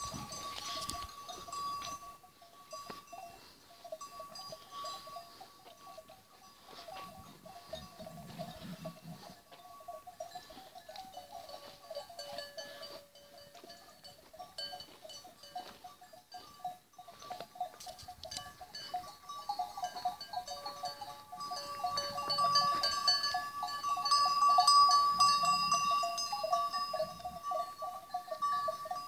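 A flock of sheep moving and grazing, with many sheep bells clanking and ringing together. The bells get louder in the last third as the flock passes close.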